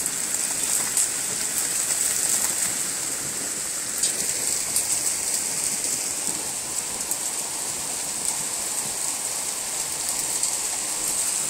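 Heavy rain mixed with hail pouring down onto a lawn and concrete, a steady hiss with a few sharp ticks scattered through it.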